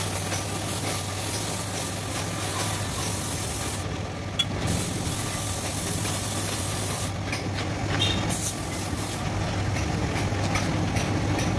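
Compressed-air paint spray gun hissing in bursts as green paint is sprayed onto tractor parts, with short pauses where the trigger is released and the hiss mostly stopping near the end. A steady low machine hum runs underneath.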